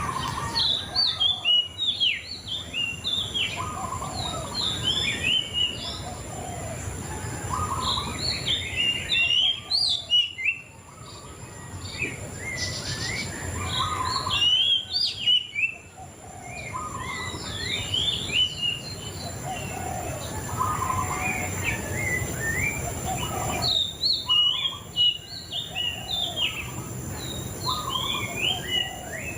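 A murai cacing songbird singing in long, varied phrases of quick chirps and whistled notes. The phrases are repeated with short pauses, one about ten seconds in and another near sixteen seconds.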